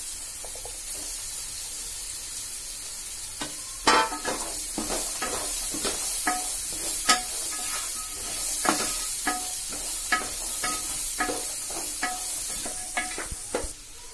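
Chopped onions and green chillies with mixed vegetables sizzling steadily as they fry in oil in a large metal pot. From about four seconds in, a wooden spoon scrapes and knocks against the pot again and again as the mixture is stirred.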